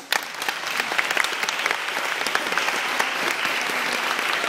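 Audience applauding: clapping breaks out right at the start and quickly swells to steady, dense applause.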